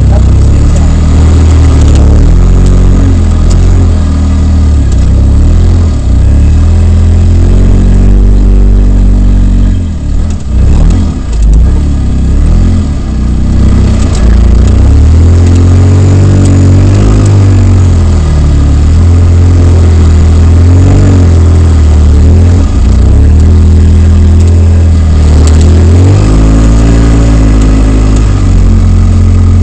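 Polaris RZR side-by-side's engine heard from inside its cab, revving up and down over and over as the throttle is worked. It drops off briefly about ten seconds in, then picks back up.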